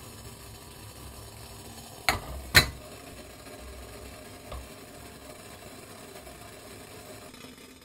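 A glass mixing bowl set down onto the rim of a metal pot to make a water bath: two sharp clinks about half a second apart, then a softer knock as it settles, over a steady low hiss.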